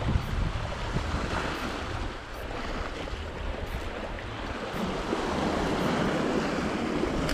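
Sea waves washing against a rocky shore, with gusty wind on the microphone.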